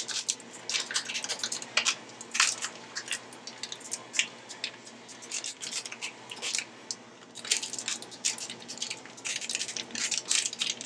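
Raw chorizo being squeezed by hand out of its plastic casing into a stainless steel bowl: the plastic crinkles and the soft meat squishes in quick, irregular crackles.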